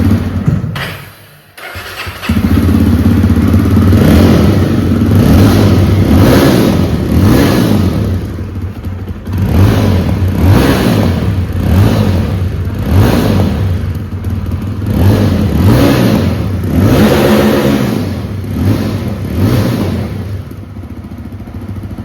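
Jawa 42 motorcycle's 300 cc single-cylinder engine sounding through its twin exhaust silencers: it starts, dies away about a second in, comes back about two seconds in, then runs and is revved again and again, the revs coming about every second or two in the second half.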